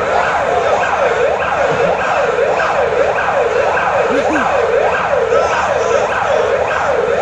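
Police vehicle siren wailing in quick, repeated rising-and-falling sweeps, about one and a half a second, loud and unbroken.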